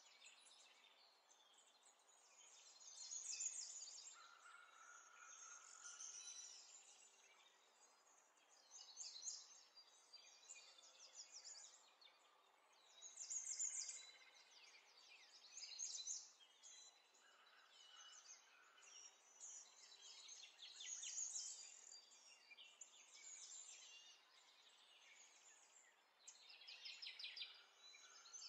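Faint scratching of a pencil on paper as numbers are written into a table, coming in short bursts of strokes every second or two.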